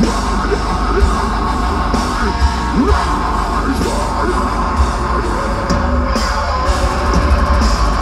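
Deathcore band playing live at full volume: distorted guitars, bass and drums with screamed vocals over them.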